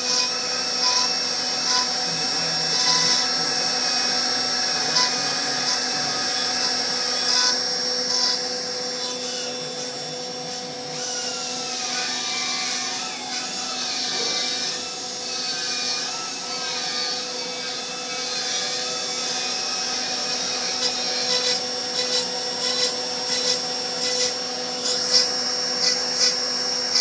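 CNC router spindle running while its bit mills a foam sculpture, a steady whine of several tones over a hiss of cutting. Some tones wander up and down about midway through, and scattered sharp ticks come more often near the end.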